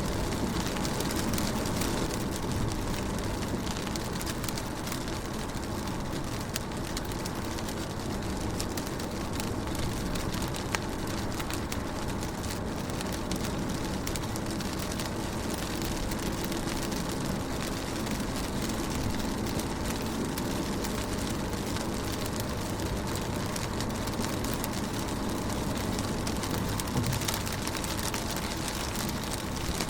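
Rain falling steadily on a car window: a dense patter of many small drop impacts over an even hiss, with a steady low rumble underneath.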